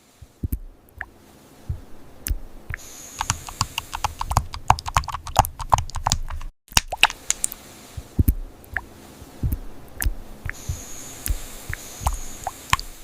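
Computer keyboard being typed on: quick, irregular key clicks, several a second, with a brief break about six and a half seconds in.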